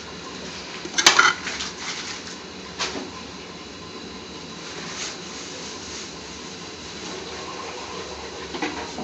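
Metal utensil clanking and scraping against a cooking pan of spinach: a quick cluster of clanks about a second in, a single knock near three seconds, and a fainter one later, over a steady background hum.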